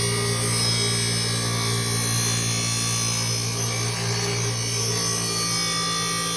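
Bench grinder motor running steadily while a steel lawnmower blade is held against the grinding wheel, giving a continuous rasping grind over the motor's hum.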